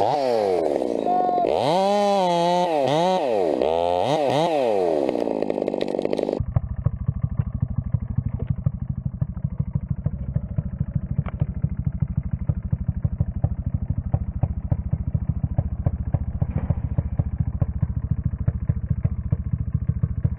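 Gas chainsaw revved up and down several times. About six seconds in it cuts abruptly to a low, steady, fast-pulsing engine idle.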